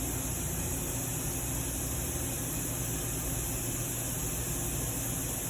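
Steady hiss with a low hum underneath, even throughout with no distinct events: continuous background noise.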